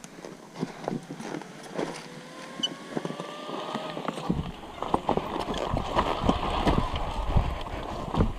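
Sherco 125 enduro motorcycle engine running under light throttle, its pitch rising slowly, while the bike clatters over rocks. About halfway through it gets louder and rougher, with a heavy rumble and repeated knocks as the bike bounces down the rocky trail.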